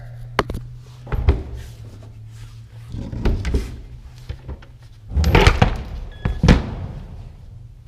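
Heavy metal safe being shifted and tilted, with a series of knocks, thunks and scrapes in several bursts. The loudest two come about five and six and a half seconds in.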